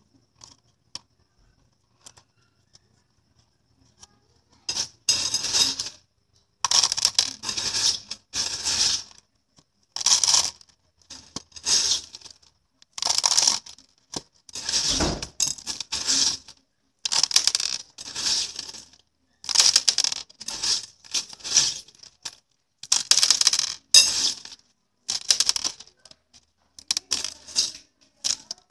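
Small pebbles rattling into a cut-down plastic bottle around spring onion roots, in short bursts about once a second, starting about five seconds in.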